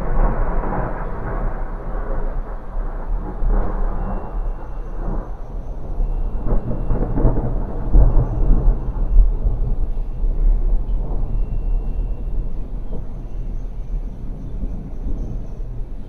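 Rolling thunder: a long, continuous deep rumble that swells to its loudest about eight seconds in, then slowly eases off.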